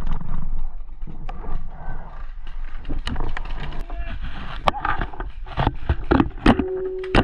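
Low-impact paintball markers firing: a string of sharp pops, sparse at first and coming quicker from about three seconds in.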